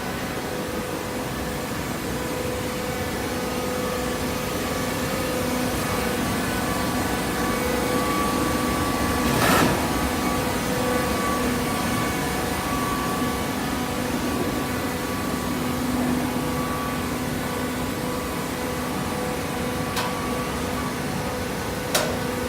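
Coconut coir fibre baling machine running with a steady mechanical hum, with a sharp knock about halfway through and two sharp clicks near the end.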